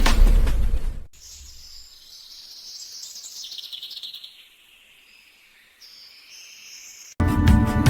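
A loud sound cuts off about a second in, leaving faint, steady, high-pitched chirping of outdoor nature ambience. Music starts suddenly near the end.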